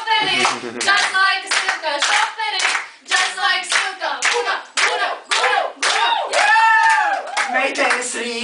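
A group of people clapping in a steady rhythm, about three claps a second, while voices sing and chant along, with a long drawn-out sung note about six seconds in.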